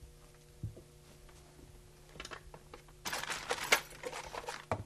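Small clicks and metallic clinks of a sheet-metal power-antenna mounting bracket and its screws being handled, with a burst of rattling and rustling about three seconds in.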